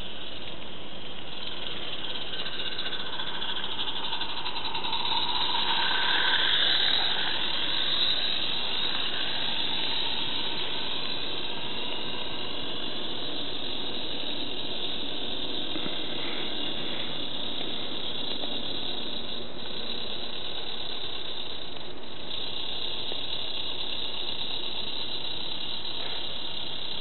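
Roundhouse Billy live-steam model locomotive running with a steady steam hiss, swelling briefly about six seconds in.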